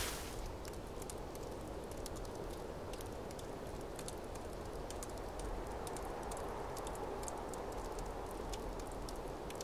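A quiet, steady rushing noise with many faint crackles and ticks scattered through it.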